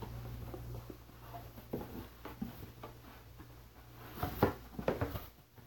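Cardboard box being rummaged by hand: rustling and scraping of cardboard and packaging with scattered light knocks, the loudest about four to five seconds in, over a faint low hum.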